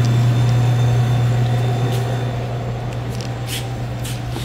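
Steady low hum of a Dixie Narco 368-8 soda vending machine's refrigeration unit running, heard close to its open compressor and condenser deck. A couple of faint clicks near the end.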